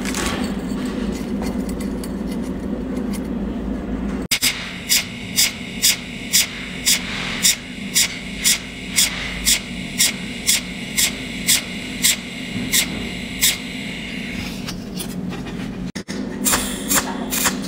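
Cold welding machine's pulsed arc firing in sharp, evenly spaced snaps about twice a second, one weld spot after another, over a steady electrical hum. The first few seconds hold only the hum, and the snaps come faster near the end.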